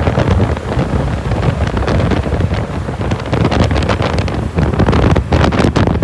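Heavy wind buffeting a microphone on a moving vehicle, in uneven gusts, over a steady low rumble of engines and road.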